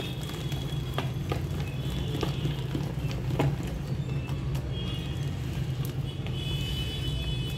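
A hand beating thick, wet urad dal batter in a plastic bowl: soft squelches and scattered slaps as the paste is folded and lifted. Under it runs a steady low rumble.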